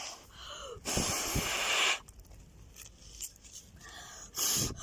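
A person blowing hard on smouldering kindling to bring it to flame: a hissing puff of breath about a second long, then a shorter puff near the end.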